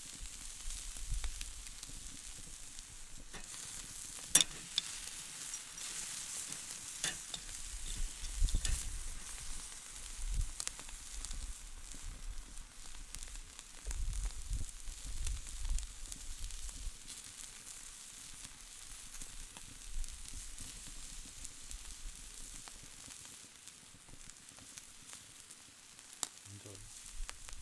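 Food sizzling on a barbecue grill: a steady high hiss with scattered sharp pops and crackles, the loudest about four seconds in, and a low rumble now and then.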